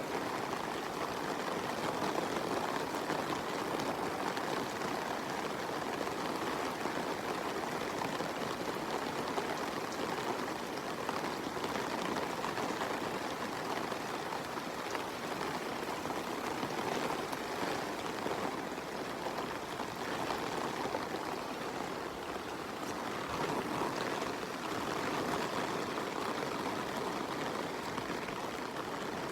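Steady rain falling: a dense, even hiss of drops with many fine taps mixed in.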